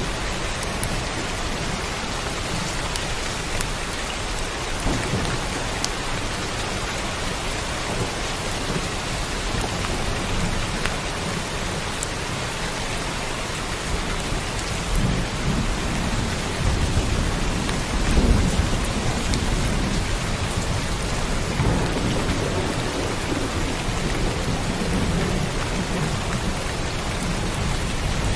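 Heavy rain falling steadily, with low rumbles of thunder swelling in the second half, loudest about two-thirds of the way through.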